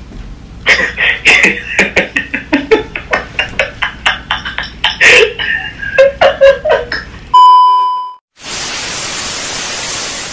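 A rapid string of short, sharp sounds for several seconds, then a loud, steady, high beep of about half a second, followed after a brief gap by TV-static hiss for about two seconds.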